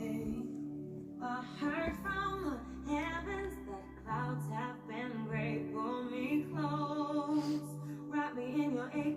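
A song playing: a voice singing a melody over steady, sustained instrumental chords.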